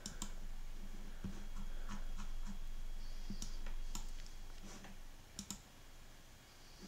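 Clicks at a computer, mainly from a mouse, as a charting program is worked: a scattered handful of short sharp clicks at irregular gaps, two of them close together near the end, over a faint steady hum.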